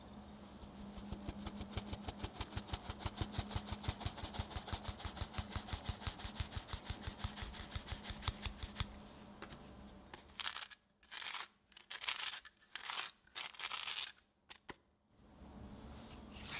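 A fine-mesh sieve is tapped rapidly, about seven taps a second, sifting flour and cocoa powder onto wet batter. Near the end it comes as several short bursts of tapping with silent breaks between them.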